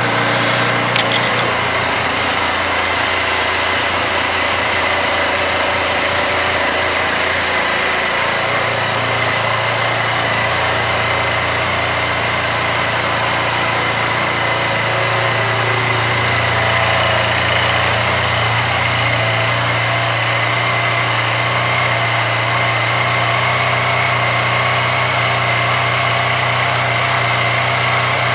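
QJ Motor SRK 400RR sport-bike engine idling steadily.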